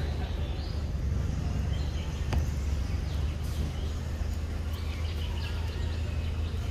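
Steady low outdoor rumble with faint, short high chirps and squeaks over it, and a single sharp click about two and a half seconds in.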